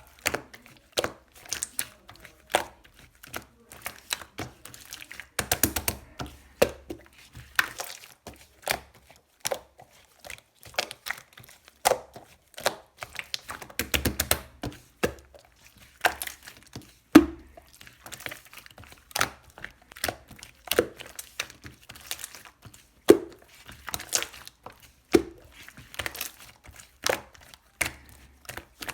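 Green marbled shaving-foam slime being squeezed and poked by hand, making a steady run of irregular sticky clicks and small pops, with denser crackling bursts around six and fourteen seconds in and one louder snap a little past halfway.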